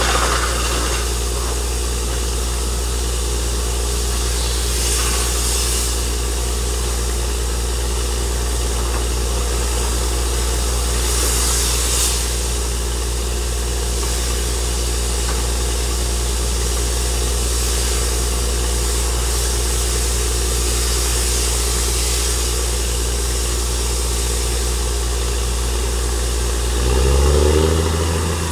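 Truck-mounted borewell drilling rig running steadily with a low engine hum, with two brief hissing bursts. Near the end the engine note rises in pitch and gets louder as it revs up.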